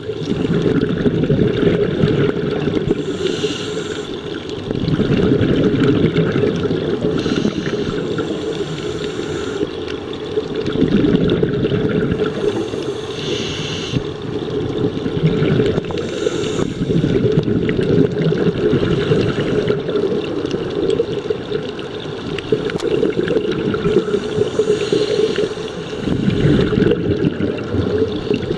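Scuba diver breathing through a regulator underwater. Short hissing inhalations come every few seconds, each followed by the low bubbling gurgle of exhaled air, over a steady underwater rumble.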